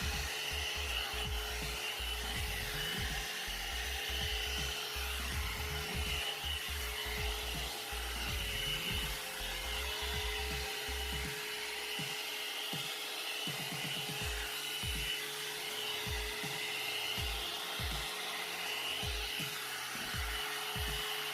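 Hot air brush hair dryer running steadily on its low setting: a constant motor whine over a rushing air hiss, with uneven low bumps as the brush is worked through the hair. Background music plays along with it.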